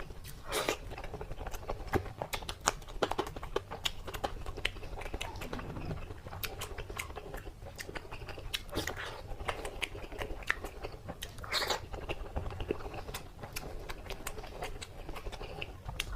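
Close-miked chewing and biting of crispy food: a steady run of crunchy cracks and clicks, with louder bites about half a second in and again about two-thirds of the way through.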